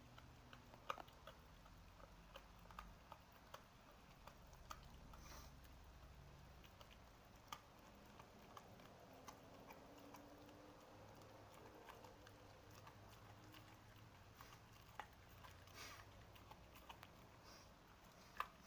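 Faint, irregular clicks and ticks at scattered intervals over near silence, with a few sharper ones standing out.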